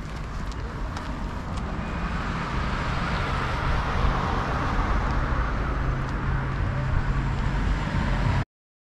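Road traffic noise, a steady rush with a low rumble, growing louder through the first few seconds. It cuts off suddenly near the end.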